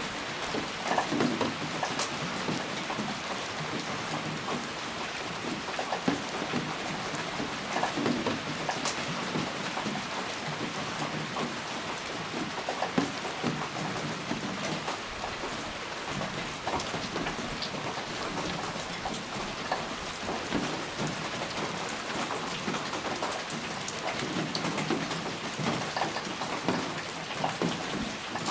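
Steady rain with a constant hiss and many distinct raindrops tapping irregularly on a surface.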